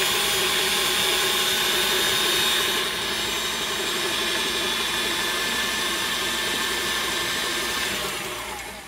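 Electric mixer running steadily with a motor whine, beating a thick peanut butter, butter and powdered sugar mixture. It drops a little in level about three seconds in and winds down just before the end.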